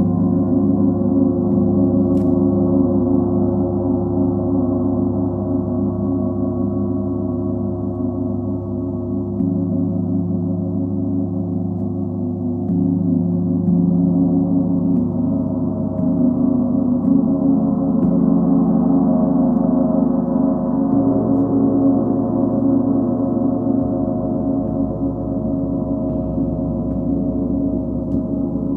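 Large planetary gongs (Sun, Full Moon and Earth) being played continuously: a sustained wash of deep, overlapping ringing tones. The low notes swell and shift several times as different gongs are sounded.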